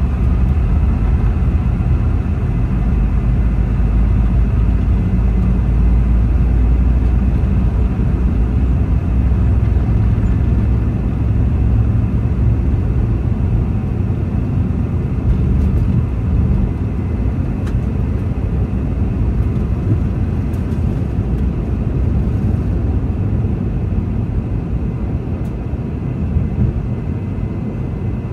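Boeing 717's two rear-mounted Rolls-Royce BR715 turbofans at takeoff power, heard inside the cabin as a loud steady rumble with a faint engine whine above it. It eases a little in the second half.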